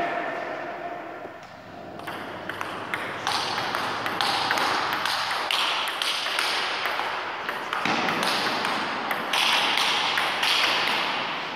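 Table tennis ball clicking off the bats and a Donic table in a rally: a quick run of sharp taps, several a second, from about two seconds in.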